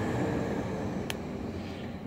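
Automated side-loader garbage truck's diesel engine running as the truck pulls away, fading slightly toward the end, with one sharp click about a second in.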